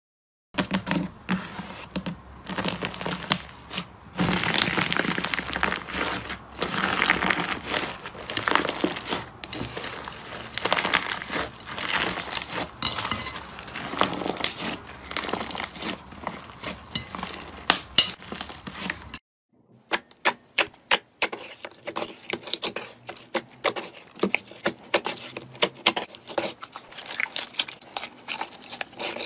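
Slime squeezed and kneaded by hands, a dense run of crackling and popping. About two-thirds through it breaks off, and sharp separate clicks and pops follow as fingers press and poke a second slime.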